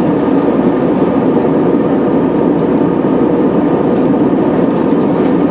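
Steady drone of an Airbus A320-214's CFM56 turbofan engines and the airflow, heard inside the passenger cabin in flight. It is loud and even, with a deep rushing hum.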